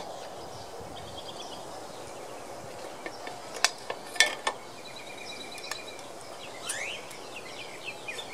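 Outdoor background noise with birds chirping, and three sharp clicks around the middle from hand tools taking the valve cover off a V-twin mower engine.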